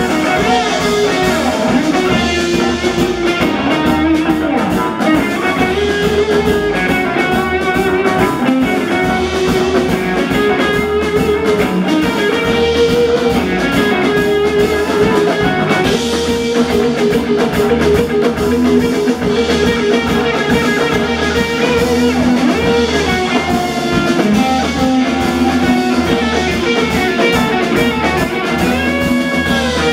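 A rock band playing live: electric guitars over bass guitar and drum kit in an instrumental passage with no singing.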